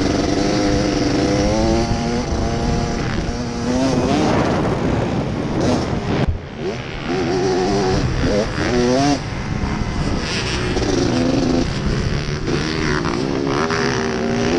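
A motocross racer's single-cylinder engine, heard from a camera mounted on the machine, revving up and down again and again as it accelerates and shifts around the dirt track. The throttle is chopped briefly about six seconds in.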